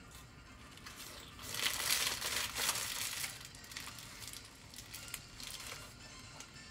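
Paper hamburger wrapper crinkling as the burger is gripped in both hands and bitten into. The rustling is loudest about a second and a half in and lasts a couple of seconds, then trails off into lighter rustles.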